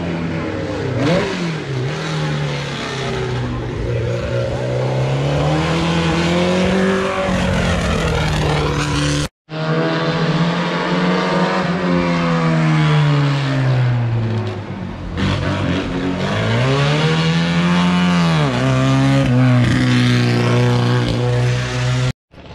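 Historic racing car engines climbing a hill course under hard acceleration. The pitch rises through each gear and drops at each shift. The sound cuts off abruptly for a moment about nine seconds in, then another climb follows.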